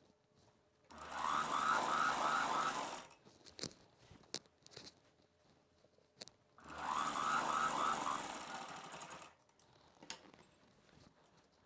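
Sewing machine running in two short stitching runs of about two seconds each, sewing down a double-folded hem, with a few small clicks between the runs.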